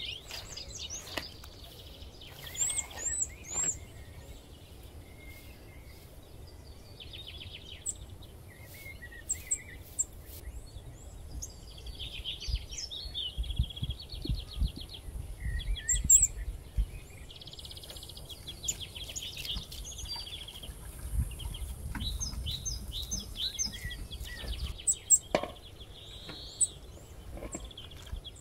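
Small birds chirping, with a few rapid trills. Scattered soft knocks and a low rumble come and go underneath.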